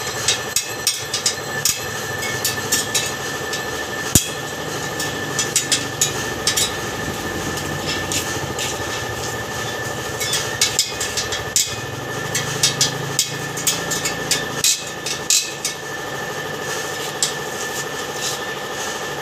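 Light metal taps on a motorcycle wheel rim, coming in irregular clusters of quick strikes, as the dent is worked out of the rim by hand. A steady engine-like hum runs underneath.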